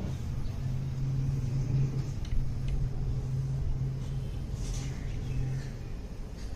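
A machine running with a steady low hum and rumble, which eases off near the end, with a few faint clicks over it.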